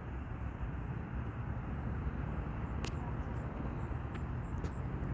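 Steady rumble of road traffic, with a low engine hum growing slightly stronger near the end.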